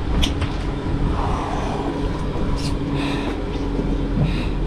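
Outboard engines of an offshore fishing boat idling, a steady low hum over a constant rumble, with a few faint ticks.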